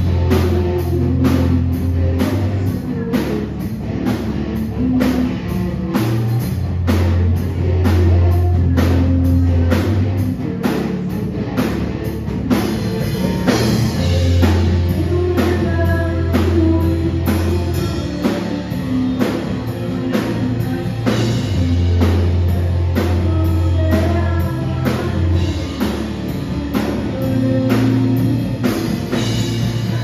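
Live rock band playing: a drum kit keeping a steady beat, bass guitar holding long low notes, electric guitar, and a woman singing into a microphone.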